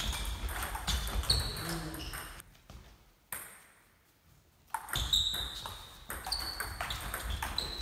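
Table tennis rallies: the celluloid-type ball clicking off the bats and the table in quick succession, with a near-silent gap about halfway before play starts again.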